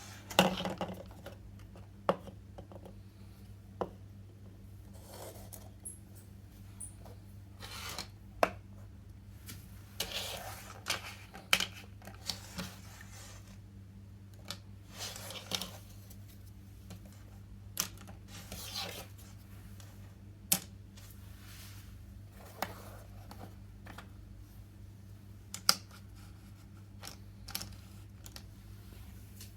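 Pieces of a miniature toy kitchen set being handled and set down: irregular sharp clicks and taps mixed with short scraping and rustling, over a steady low hum.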